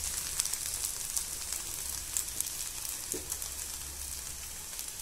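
Cubes of idli with onion, chilli and spices frying in oil in a nonstick pan over a gas flame: a steady sizzle with scattered light crackles.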